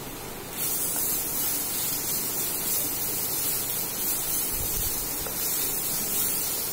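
Ginger-garlic paste sizzling in hot oil in a kadhai while it is stirred with a wooden spatula; the hiss swells about half a second in and then stays steady.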